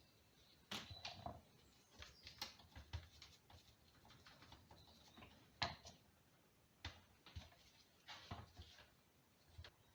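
Scattered light clicks and knocks at irregular intervals as power steering pump parts are handled during the rebuild.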